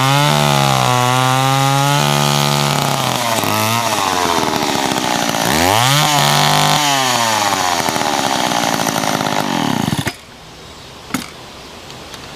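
Vintage two-stroke chainsaw cutting through branches, its engine pitch rising and falling as it revs and loads in the cut. It shuts off about ten seconds in, followed by a single sharp click.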